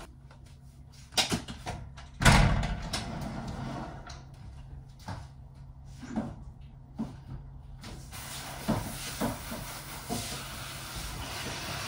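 Household handling noises during chores: a series of knocks and clatters, the loudest about two seconds in, with smaller knocks spread through the rest.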